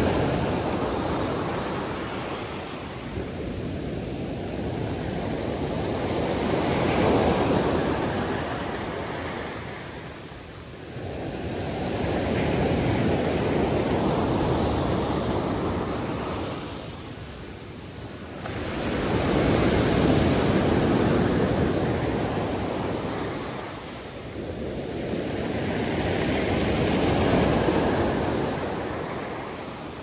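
Sea waves breaking, the surf swelling and fading about every seven seconds, four surges in all.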